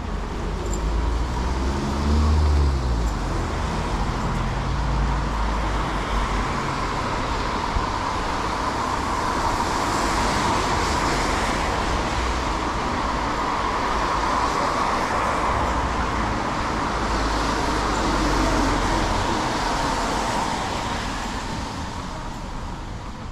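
Road traffic passing on a rain-wet city street: a heavy vehicle's engine pulls away in the first few seconds, its pitch rising, then a steady hiss of tyres on the wet road swells through the middle and fades near the end.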